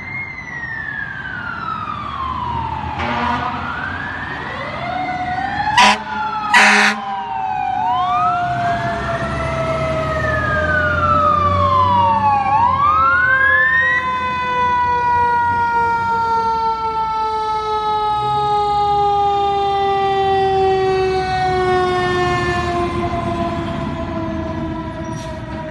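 Fire engine sirens wailing, rising and falling every few seconds, cut by short loud air horn blasts about 3, 6 and 7 seconds in. In the second half a siren's pitch falls slowly and steadily as it winds down, over the low rumble of the trucks' engines.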